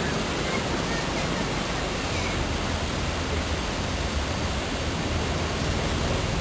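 Wulai trolley train running along its narrow track: a steady rushing noise with a low hum underneath.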